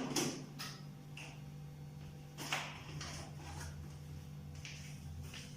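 Food containers being set onto refrigerator shelves: a string of light knocks and clatters, about eight over a few seconds, over a steady low hum.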